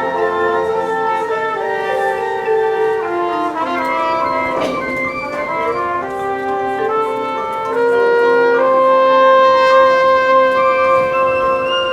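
High school marching band playing: brass and woodwinds sustaining slow chords, with a cymbal crash about five seconds in and the band swelling louder about eight seconds in.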